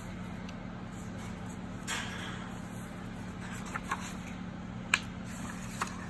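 Pages of a hardcover book being turned and handled: a brief paper rustle about two seconds in, then a few light clicks and taps, the sharpest near five seconds in. A steady low hum runs underneath.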